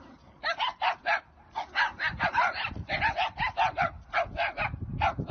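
Dogs barking in rapid, repeated bursts, several barks a second with short gaps between runs.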